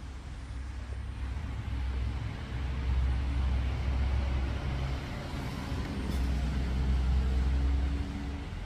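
AC servo motor running on a Mitsubishi servo amplifier under test, giving a low hum with a faint whine. It runs up twice, easing off a little past halfway and dropping back near the end.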